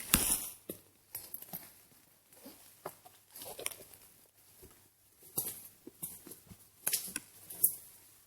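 Irregular rustling and crackling of dry leaf litter and twigs: footsteps through forest undergrowth.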